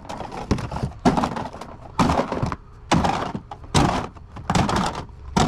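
A run of separate thuds and clunks, about one or two a second.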